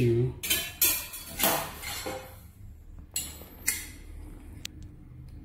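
Steel samples clinking and scraping against each other and the tabletop as they are handled: several clatters in the first two seconds, then two sharper knocks a little after three seconds.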